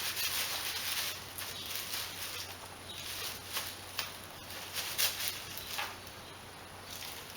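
Plastic shopping bag rustling and crinkling in irregular bursts as a cat plays in and around it, with a few sharper ticks.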